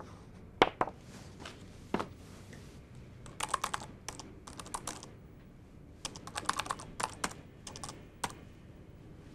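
Typing on a keyboard in quick bursts of key clicks, with a couple of single sharp knocks in the first two seconds.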